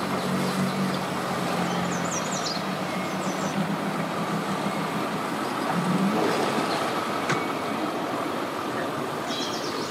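An engine idling with a low steady hum that fades out about six seconds in, over constant background noise.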